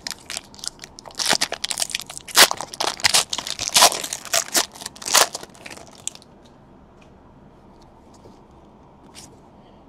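Foil wrapper of a Panini Chronicles Baseball trading-card pack crinkling and crackling as it is opened by hand. The crinkling is dense for about six seconds, then gives way to a few faint ticks.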